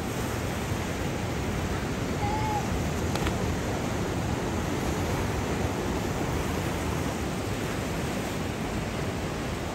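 Ocean surf breaking on the reef and washing against the rocks, a steady rushing noise.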